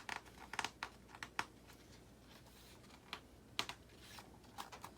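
Handling of a picture book: a scattered series of light, sharp taps and clicks, a cluster in the first second and a half and more near the end.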